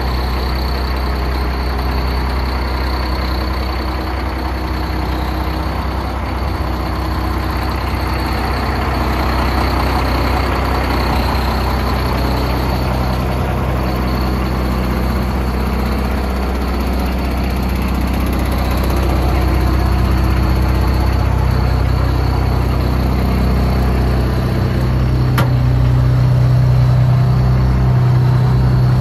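M35A2 deuce-and-a-half's turbocharged six-cylinder multifuel diesel idling steadily, a deep even drone that grows louder in the second half.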